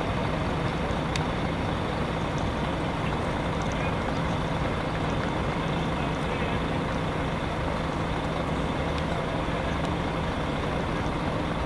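Steady outdoor background noise: an even rumbling wash with a constant low hum, unchanging throughout.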